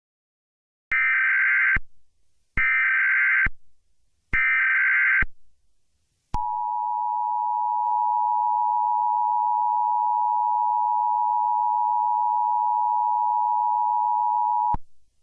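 Emergency Alert System (SAME) header: three short, identical bursts of warbling digital data tones, each a little under a second, followed by a steady attention tone lasting about eight seconds that cuts off suddenly. It is the signal that opens a severe thunderstorm warning.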